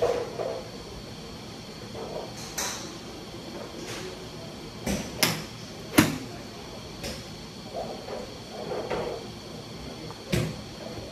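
A golf ball struck with a 9 iron off a driving-range mat: one sharp, crisp click about six seconds in, the loudest sound here. Several fainter knocks and clicks come before and after it.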